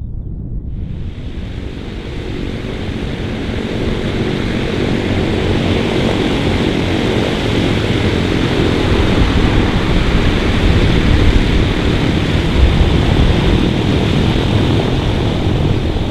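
Avro Lancaster's four Rolls-Royce Merlin piston engines running with propellers turning, a dense steady drone that fades in about a second in and grows louder over the next several seconds.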